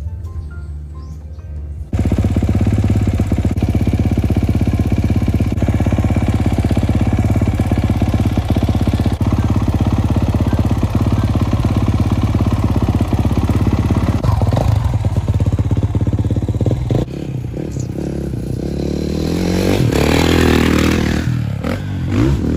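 Dirt bike engine running loud at a motocross track, starting suddenly about two seconds in. It drops back a little near the end, then swells again as the bike revs or passes close.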